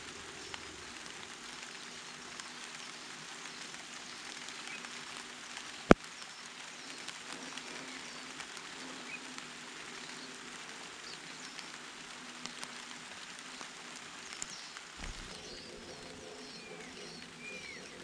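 Steady rain pattering on leaves, with one sharp click about six seconds in and a few short bird chirps near the end.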